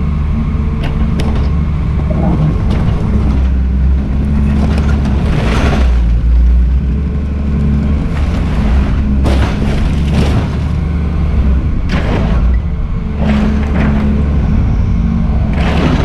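Volvo EC210CL excavator's diesel engine running steadily while its bucket crushes a refrigerator, with a series of crunching, banging impacts of metal and plastic: the loudest about a third of the way in and again at the end, with smaller ones in between.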